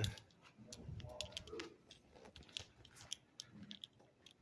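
Scattered small clicks and taps over quiet room tone, with faint murmuring voices in the background.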